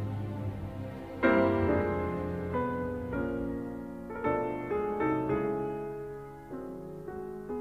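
Background music: a piano playing slow, gentle notes and chords, the first struck about a second in, each left to ring and fade.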